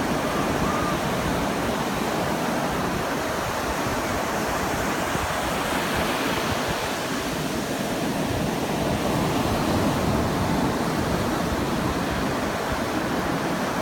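Sea surf breaking and washing up a sandy beach, a steady rushing.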